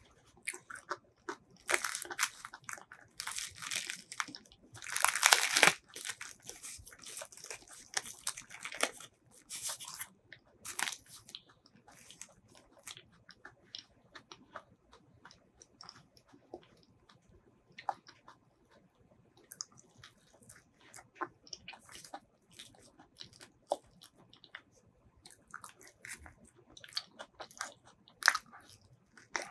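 Close-miked eating of soft, creamy durian flesh: fingers pulling the pulp apart, and biting and wet chewing. Densest and loudest over the first nine seconds or so, then sparse smacks and clicks.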